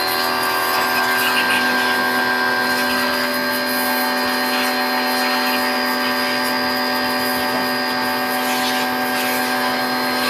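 High-pressure washer running: its motor and pump give a steady, even-pitched hum while the water jet hisses against a motorcycle's wheel and frame.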